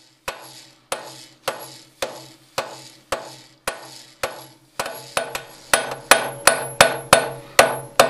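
Hand hammer striking a red-hot iron bar held on the edge of an anvil, forging an offset. The blows fall evenly, a little under two a second, then come quicker and louder from about five seconds in, each followed by a short metallic ring.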